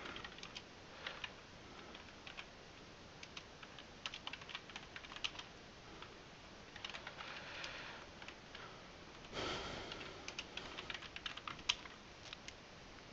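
Computer keyboard typing: faint keystroke clicks in irregular bursts with short pauses, one sharper stroke near the end. A brief soft rush of noise comes about nine and a half seconds in.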